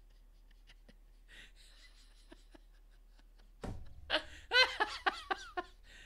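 A man laughing out loud: a run of loud 'ha' pulses starting a little past halfway, after a few faint clicks in the near quiet before it.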